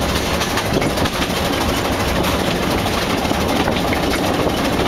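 Steady running noise of a 2-foot narrow-gauge steam train, heard from the car coupled right behind locomotive No. 10, a 1904 Vulcan: wheels rumbling on the rails as the engine works along.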